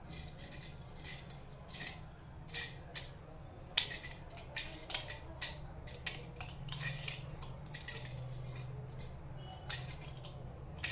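Irregular small metallic clinks and clicks from a chrome-plated two-way angle stop cock being turned by hand onto a threaded, Teflon-taped wall fitting, the sharpest clink about four seconds in.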